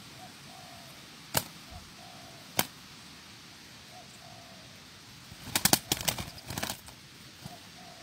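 Spotted doves: soft cooing, short phrases repeating every second or two, with two single sharp wing claps and a louder burst of wing flapping about five and a half seconds in.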